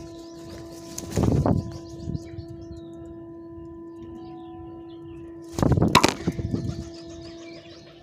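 Two short spells of bird wings flapping, about a second in and again near six seconds, over a steady low hum and faint chirping of small birds.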